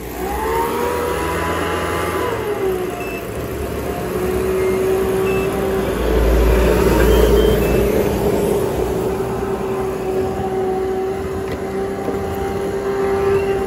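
Sharp ESX715 top-loading washing machine running on a test after its chewed water-level and water-inlet wires were rejoined. A falling whine in the first two seconds settles into a steady hum over a rushing noise, with a few short panel beeps.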